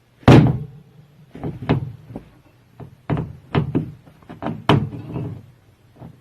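A series of knocks and thumps, irregularly spaced, the loudest about a quarter second in and another strong one near five seconds.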